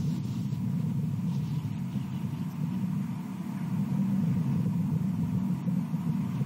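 Steady low rumble with a faint thin high tone running through it.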